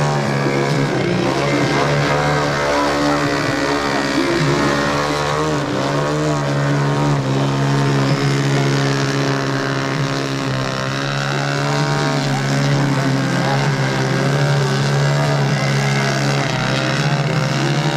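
Engine and propeller of a 50%-scale Yak 54 radio-control plane running at hover power, its pitch wavering up and down as the throttle is worked to hold the plane hanging nose-up.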